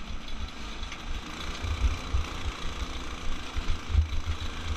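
Off-road go-kart's small gas engine running under load through a torque converter while driving over a rough dirt trail, with an uneven low rumble throughout.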